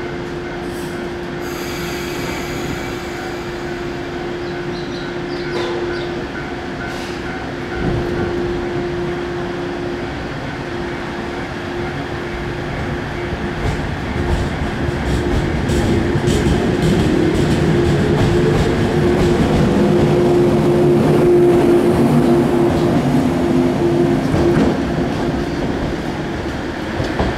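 Shinano Railway 115 series electric train pulling out: a steady hum while it stands, then the rising whine of its traction motors and the run of its wheels as it gathers speed past. The sound is loudest about three-quarters of the way through, then eases as the train draws away.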